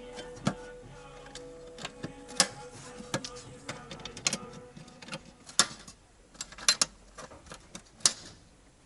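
Irregular sharp metal clicks and knocks of tools and parts being handled while the priming work on the UAZ's carburettor is closed up, over a faint steady hum in the first half.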